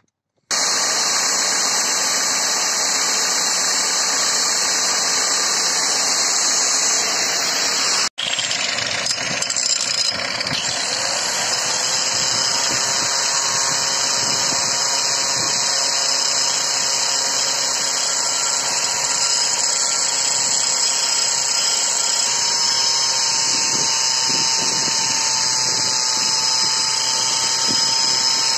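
Angle grinder running steadily, its abrasive wheel held against the face of a worn, rusty car brake disc on the hub to resurface it. The sound cuts out for a moment about eight seconds in, then picks up again with a steady whine over the grinding noise.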